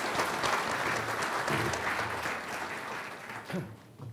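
Audience applauding in a hall, many hands clapping together, dying away about three and a half seconds in.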